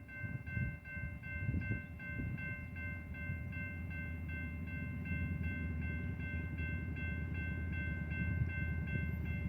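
Railroad grade crossing bell ringing steadily at about four strokes a second, over a low rumble.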